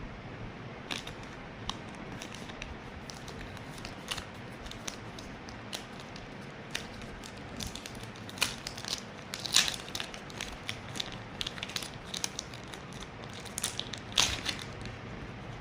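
Packaging being handled during an unboxing: crinkling and rustling with irregular small clicks and taps. It gets busier and louder from about halfway, with the sharpest clicks near the middle and again near the end.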